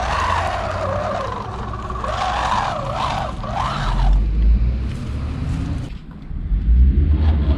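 Electric motor and gear drive of an MST scale RC crawler whining, its pitch rising and falling with the throttle as it works through mud. A low rumble takes over in the second half.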